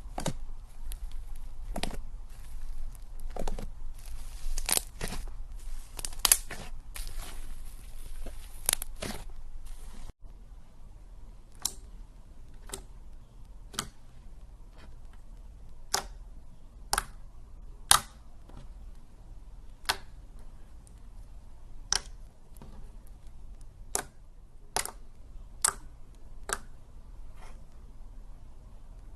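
Slime being squeezed and stretched by hand, crackling and snapping with many small pops. After a cut about ten seconds in, single sharp pops come about once a second.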